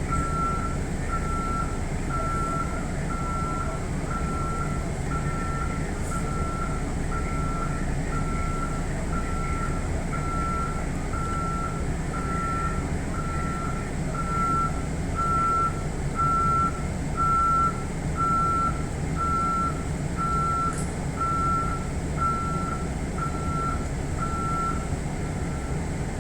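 An electronic beep at one steady pitch, repeating about once a second and stopping near the end, over the steady low hum of a stopped electric train's equipment.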